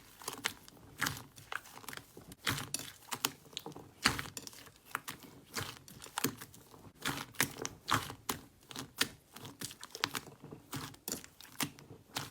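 Slime being squeezed and poked by hand, giving a dense run of irregular sticky crackles and small pops.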